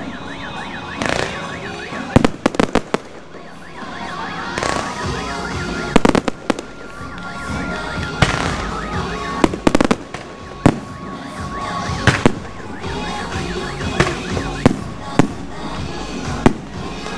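Aerial firework shells bursting: irregular sharp bangs, some coming in quick clusters of several, with crackling in between.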